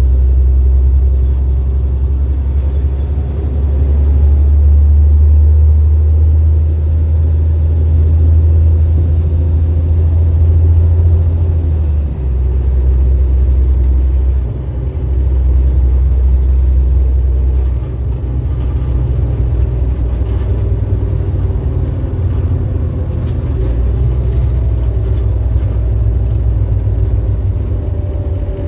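Caterpillar diesel engine of a Denning Phoenix low-floor bus running, heard from inside the passenger cabin as a loud, deep, steady rumble. The note dips briefly about twelve seconds in and again a couple of seconds later, then settles lower from about eighteen seconds on.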